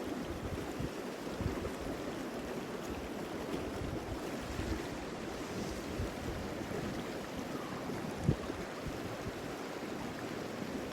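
Steady rush of flowing river water, with gusts of wind buffeting the microphone and a single short bump about eight seconds in.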